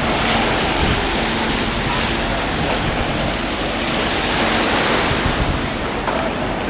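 Waves breaking and washing on the shore under strong wind, with gusts buffeting the microphone in a low rumble; the surf swells louder twice.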